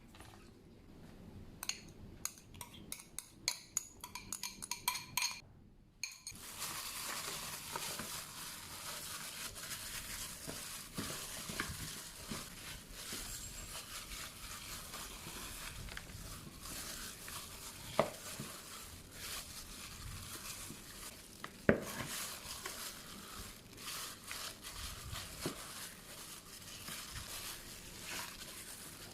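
Kitchen cooking sounds: a run of light clicks and knocks from utensils and dishes, then from about six seconds in a steady hiss with occasional knocks, two of them louder later on.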